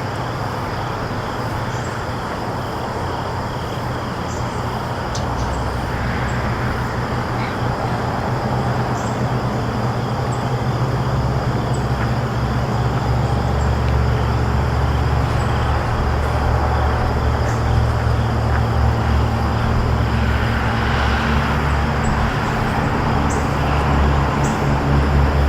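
Steady outdoor background noise: a low rumble that grows slightly louder over the stretch, with thin steady high tones above it and a few faint ticks.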